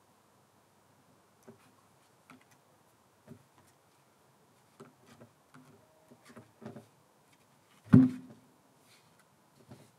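Scattered light knocks and taps, then one loud thud about eight seconds in with a short low ring after it.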